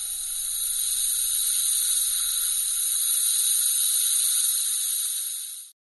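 A steady, high hiss with a few thin whistling tones in it. It swells over the first second or two, holds, then cuts off suddenly near the end.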